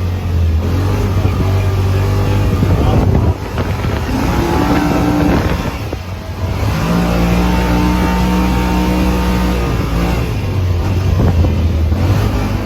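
Motor vehicle engine running steadily under load. Its pitch shifts several times as engine speed changes, and it eases off briefly about three seconds in and again about six seconds in.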